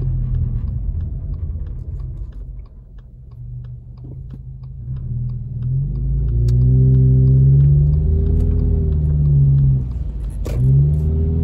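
Car engine heard from inside the cabin: a low idle at a stop, then revving up as the car pulls away, its pitch climbing, dipping once about ten seconds in as it shifts up, and climbing again. A sharp click sounds just after the dip.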